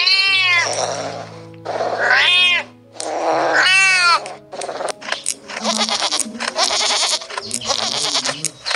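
A domestic cat meowing three times, each meow a drawn-out call rising and falling in pitch, over background music with held notes. From about five seconds in, a pen of lambs bleating, many calls overlapping.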